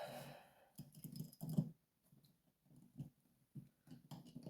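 Faint small clicks and rustling as the Rosengrens disc detainer safe deposit lock and picking tools are handled, in a few short clusters.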